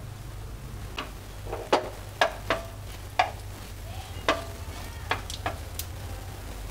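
A spatula stirring cumin seeds and dried red chillies in hot oil in a nonstick frying pan, tempering the spices: a faint sizzle with about ten irregular sharp clicks as the spatula knocks and scrapes against the pan.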